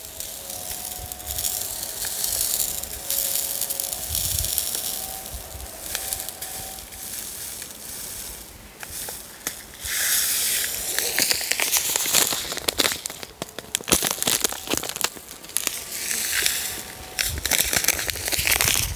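A plastic bag of citric acid crystals crinkling and rustling in uneven crackly bursts as it is handled and the crystals are tipped onto a pocket scale's tray. The bursts are loudest about ten seconds in and again near the end.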